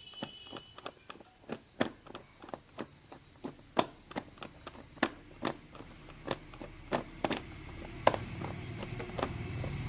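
Irregular sharp clicks of a screwdriver and loose screws as the motorcycle's air filter cover screws are undone, about one or two clicks a second, over a steady high-pitched tone.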